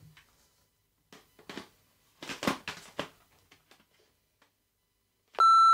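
Plastic parts of a cordless stick vacuum being handled and fitted together: a few light clicks and knocks. Near the end, a short, loud electronic beep at one steady pitch that stops abruptly.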